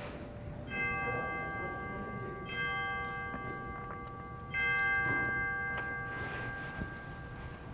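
A chime struck three times, about two seconds apart, the same note each time, each ringing on and slowly fading; the third stroke is the loudest.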